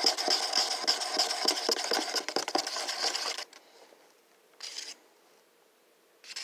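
Wooden craft stick stirring thick washable paint in a paper cup, scraping the sides and bottom with a fast rubbing rasp and many small clicks. The stirring stops abruptly about three and a half seconds in, and a second later there is one short, faint scrape.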